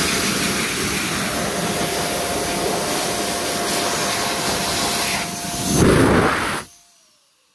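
PHS Airstream Vitesse hand dryer blowing: a steady rush of air over a constant motor whine. The air grows louder briefly about six seconds in, then cuts off shortly before the end, and the motor whine falls in pitch as it spins down.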